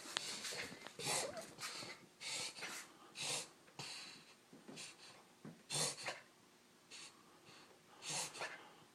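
A puggle dog's abnormal breathing episode: a run of short, noisy, rasping breaths, about two a second at first, then sparser and fainter after about four seconds, with a few louder ones near the end.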